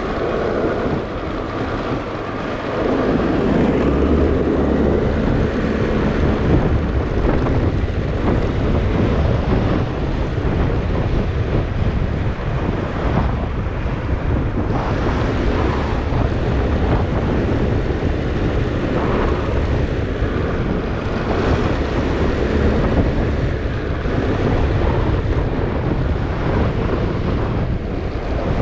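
Wind buffeting the microphone of a moving motorcycle, with the motorcycle's engine and road noise underneath as a steady low rumble. It grows a little louder about three seconds in.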